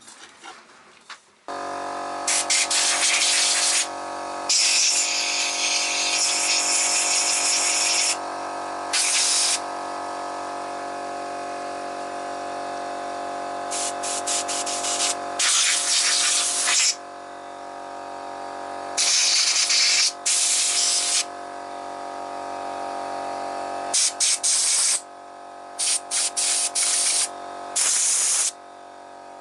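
Repeated hissing spray bursts, each a second or two long, over a steady mechanical hum, as a hydraulic valve lifter is sprayed clean.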